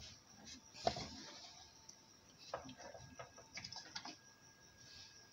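Faint, scattered metallic clicks and taps from an aluminium pressure cooker's lid being fitted and closed on the pot.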